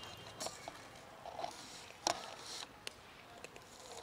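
Cats eating dry kibble from a plastic tub: scattered crunches and clicks, the sharpest about two seconds in.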